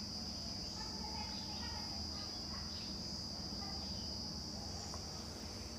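Domestic sewing machine running steadily and faintly while topstitching a kurti's V-neck, under a constant high-pitched whine.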